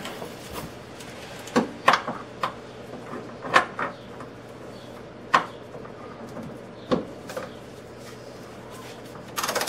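Scattered metallic clicks and knocks from a torque wrench and hand tools being worked on subframe bolts, with a quick run of clicks near the end. A faint steady low hum runs underneath.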